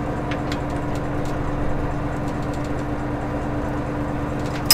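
Fishing boat's engine running steadily with a low hum, with faint scattered ticks and one sharp click near the end.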